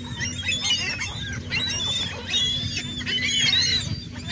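A flock of seagulls calling over one another while being fed: many overlapping high squawks and cries, with no let-up.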